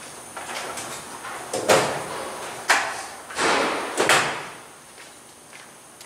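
Rustling, clattering handling noise of hand tools and jumper wires being picked up, with three sharp clacks about a second apart.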